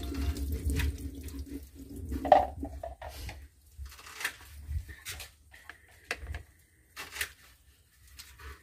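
Water poured into a metal sink basin of blue crabs for about two and a half seconds, then scattered clicks and knocks as hands handle the hard crab shells in the water.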